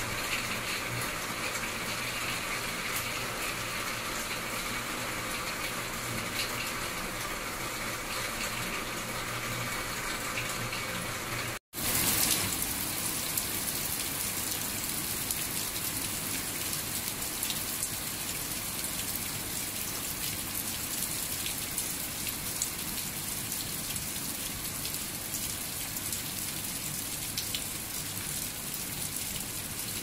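Heavy tropical rain falling, a steady hiss of water. About a third of the way in, the sound cuts out for an instant and comes back brighter and a little louder: rain pouring in the open onto garden foliage.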